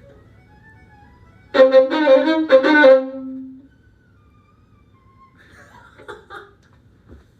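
Violin playing a short, loud phrase of a few bowed notes about a second and a half in, ending on a held lower note that dies away about halfway through; only faint sounds around it.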